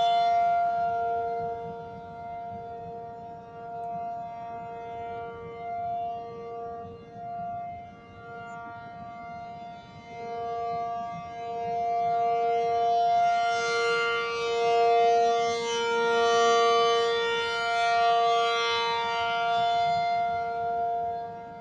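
Outdoor warning siren sounding a steady alert signal on test: a held two-note chord that does not rise or fall in pitch. Its loudness swells and fades, loudest in the second half.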